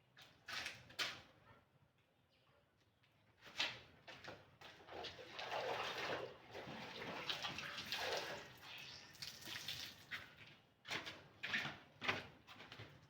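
Clothes being hand-washed in water: irregular splashing and sloshing. A short quiet lull comes about two seconds in, then a longer stretch of steady swishing from about four seconds to ten seconds in.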